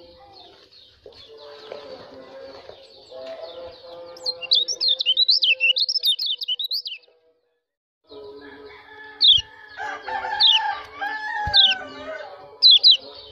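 White-eye (pleci) chirping in the ciakan style used to excite birds of the opposite sex in breeding condition: a quick run of high twittering chirps, then several sharp single chirps, with lower calls of other birds beneath. The sound cuts out for about a second midway.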